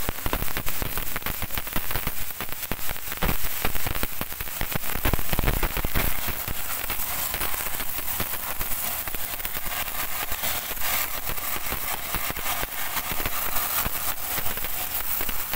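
Pressure washer jet hissing and spattering against a rear drum brake and hub, with water crackling off the metal. It is heavier and rougher in the first few seconds, then settles to a steadier hiss.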